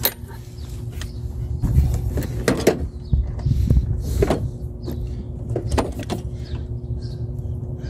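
Ratchet and socket extension clicking and scraping against metal as the loosened timing-chain tensioner of a 2006–2010 Ford Explorer engine is unscrewed by hand, several short knocks scattered through, over a steady low hum.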